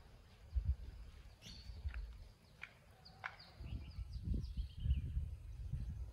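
Birds chirping outdoors: a few short, sharp falling calls, then a quick run of chirps, over an uneven low rumble that grows louder in the second half.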